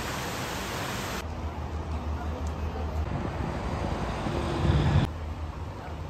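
Steady rush of water from a rocky creek cascading over boulders, with a low rumble underneath that swells briefly near the end. The sound changes abruptly about a second in and again near the end.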